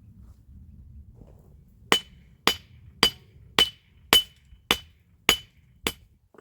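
Hammer striking eight even blows, about two a second, each with a short metallic ring.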